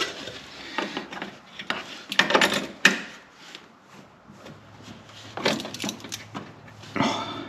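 Pliers working a car radiator's drain petcock open, with scattered clicks, scrapes and knocks. The loudest cluster comes a little over two seconds in, and a few more follow near the middle and end.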